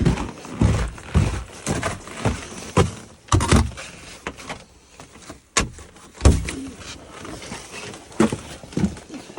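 Irregular thumps and knocks of someone moving about and handling things, with a single sharp click about five and a half seconds in.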